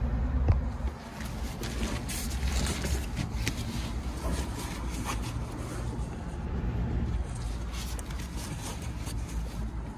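Handling of a nylon insulated food-delivery bag: irregular rustling, light scraping and small clicks of fabric and straps, over a low steady rumble.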